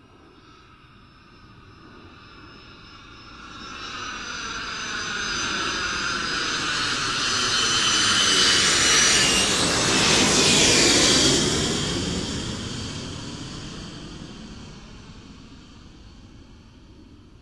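A jet aircraft flying overhead. It grows from faint to loud, peaks about ten seconds in, where high whistling tones slide down in pitch as it passes, then fades away.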